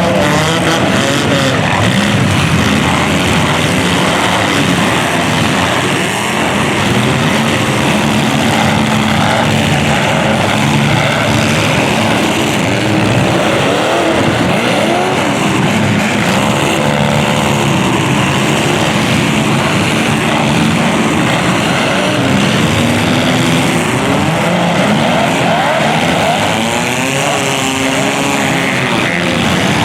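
Several demolition derby cars' engines revving at once, their pitches rising and falling over a loud, steady din.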